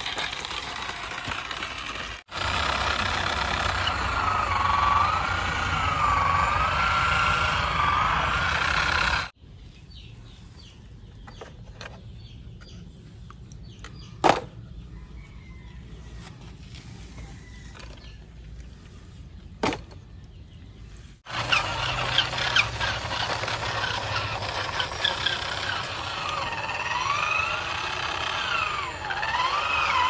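Small electric motor and plastic gears of a toy truck whining, the pitch wavering up and down as it drives. In a quieter stretch in the middle there are two sharp plastic clicks.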